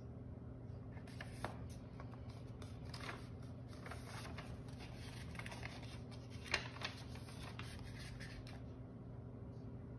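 Paper rustling as the pages of a handmade folded card are handled and turned, with a few sharp crackles, the loudest about six and a half seconds in. A steady low room hum lies underneath.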